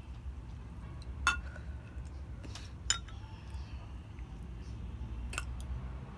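Eating utensils clinking against a dish: a few sharp, separate clinks, over a steady low hum.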